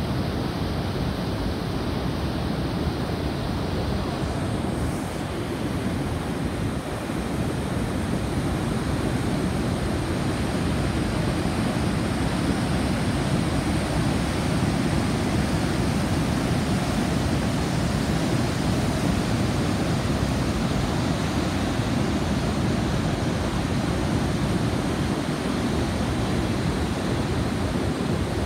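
Steady rushing of a large waterfall, the Lower Falls of the Yellowstone River, a constant heavy wash of falling water with no pauses.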